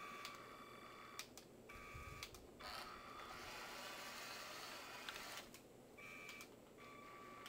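Near silence: a faint, steady high-pitched whine over hiss, which drops out briefly a few times.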